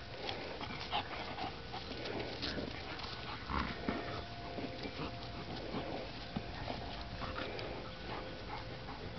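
A Bouvier des Flandres and a Catahoula Leopard Dog play-wrestling: panting and short, irregular dog play noises.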